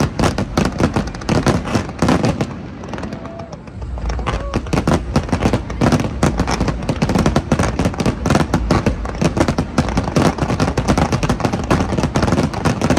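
Fireworks display: a dense, rapid volley of bangs and crackling from many shells going off at once, easing briefly about three seconds in before picking up again.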